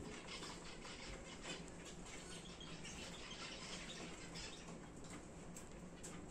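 Star finches giving many short, faint, high chirps, scattered irregularly.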